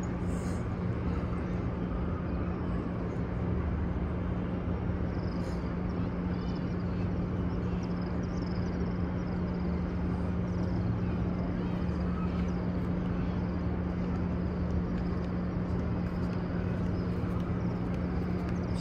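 Steady ambience of a large crowd of worshippers: an even wash of noise over a constant low hum, with faint high chirps here and there.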